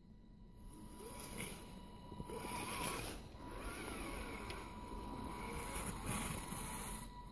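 Electric motor and gear drivetrain of an Axial SCX10 scale RC crawler whining as it climbs a snow pile, the pitch rising and falling with the throttle.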